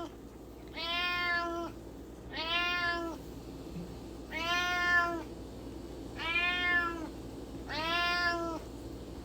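Domestic cat meowing five times, about every two seconds, each meow under a second long on a fairly steady pitch: a hungry cat calling to be fed breakfast.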